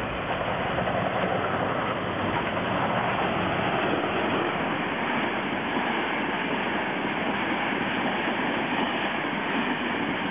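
Northern Ireland Railways 201 Class diesel locomotive 8208 and its passenger carriages passing at speed. The train goes by as a steady, loud rush and rumble of wheels on rail, peaking a few seconds in as the locomotive and front carriages pass.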